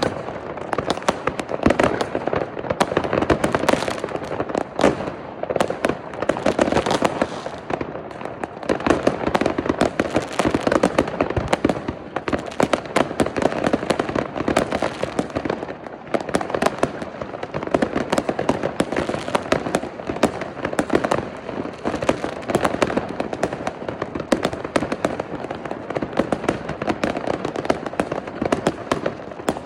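Many consumer fireworks and firecrackers going off at once across a neighbourhood: a dense, unbroken crackle of rapid pops and bangs.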